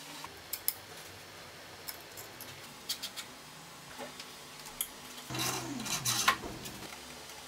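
Scattered clicks and clinks of small metal parts and tools being handled, with a brief whirring sound that falls in pitch about five and a half seconds in.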